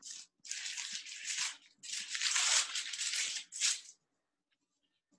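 Roll of filo dough being unrolled from its plastic wrapping: crinkling, rustling plastic and pastry sheets in several spells, stopping about four seconds in.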